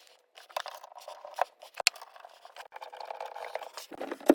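Scattered light clicks and scrapes, with a louder cluster of clicks near the end.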